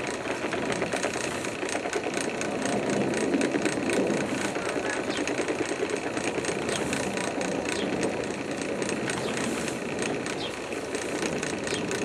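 Drill press running a steel dough hook through bread dough in a rotating propane-tank bowl. A steady motor hum with a continuous, irregular clicking rattle.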